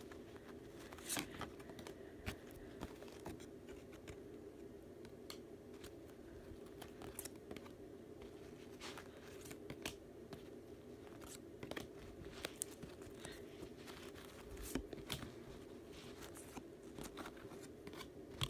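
Trading card pack wrappers and cards being handled: faint crinkling and tearing with scattered small clicks and rustles, over a steady low hum.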